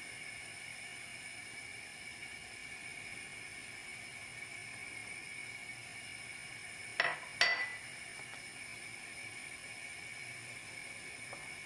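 Two quick clinks of kitchenware, about half a second apart, over a steady faint hiss with a thin high whine.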